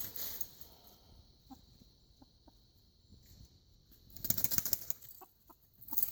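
Chickens clucking softly a few times, with a burst of rustling noise about four seconds in that is the loudest part, then a few more short clucks.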